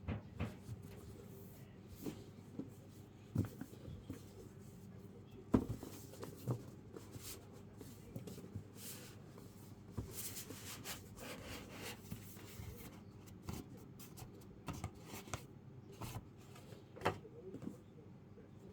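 Handling sounds: scattered single knocks and clicks, one or two a second and not a continuous typing run, the loudest about five and a half seconds in. A stretch of rustling runs from about ten to thirteen seconds, over a faint steady hum.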